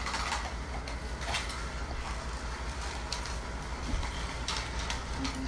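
Small battery-powered Zip Track toy race cars running along the snap-together plastic track: a steady, quiet mechanical whirr and rattle with a few light clicks.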